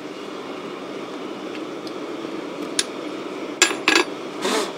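A hammer striking a small piece of steel held in tongs on a makeshift anvil (an old hammer head): a few faint taps, then two sharp metal blows close together about three and a half seconds in, followed by a short rasping noise. Under it runs the steady rush of the forge's air blower.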